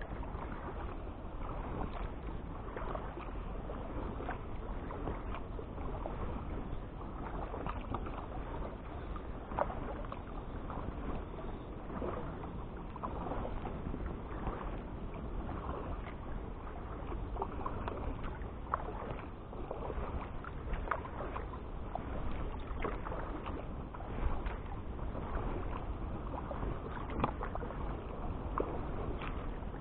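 Kayak paddle strokes: the blades dipping into river water with irregular small splashes and drips, over a low steady rumble.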